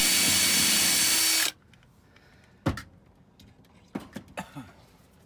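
Power drill running steadily as it bores a pilot hole into the boat's fibreglass cabin ceiling, stopping abruptly about a second and a half in. A few short clicks and knocks follow.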